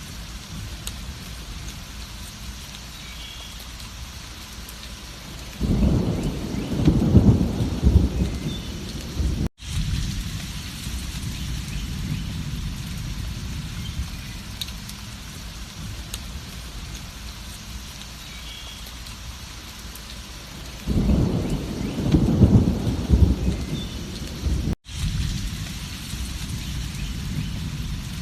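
Steady heavy rain with two long rolls of low thunder, about fifteen seconds apart. Each roll cuts off suddenly at a brief gap in the sound.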